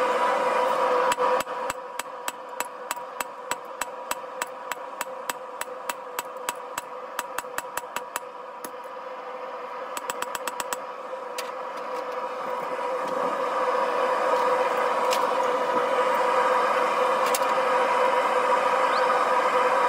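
Hand hammer striking hot rebar on a steel anvil, a steady run of blows about three a second for several seconds, then a quick flurry of strikes and a few single ones. Under it the steady roar of a propane forge burner.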